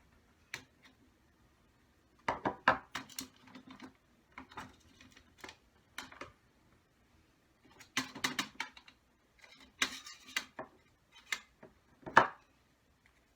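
Small metal parts of an RC nitro engine clinking and knocking against each other and the work surface as they are handled, in irregular clusters of sharp clicks with short pauses between them.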